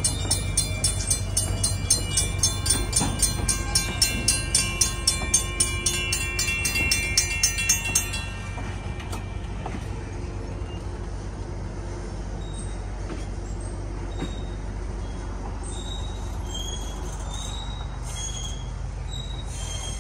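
Railroad crossing signal bell ringing at about three strokes a second during a test activation, cutting off suddenly about eight seconds in. After it stops, a steady low rumble remains with a few short high chirps.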